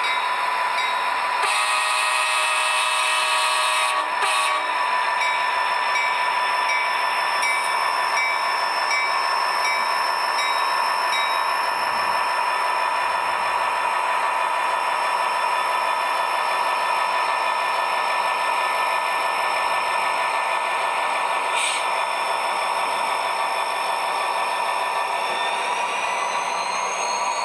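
Model diesel locomotive running past with its sound system on: a horn blast in the first few seconds, then a steady engine and rolling sound as the train of freight and tank cars goes by. A rising whine comes in near the end.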